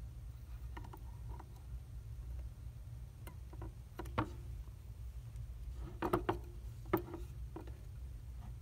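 Scattered light clicks and taps from a steel needle holder and a plastic model jaw being handled as a suture is placed and pulled through. The loudest clicks come in a quick cluster about six seconds in, with one sharp click about a second later, over a steady low hum.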